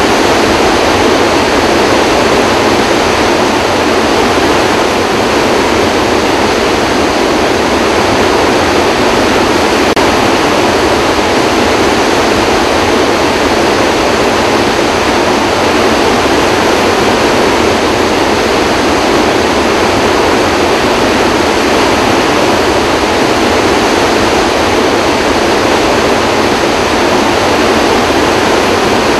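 Floodwater pouring out under the open spillway gates of a large dam and churning in the basin below: a loud, steady rush of water. It is a major flood release, with all the gates open and about 44,000 cubic feet of water per second going through.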